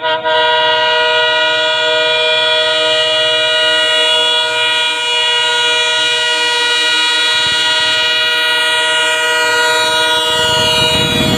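Indian Railways diesel locomotive's air horn held in one long, steady blast as the train approaches at speed. Near the end the rumble of the oncoming train rises under the horn.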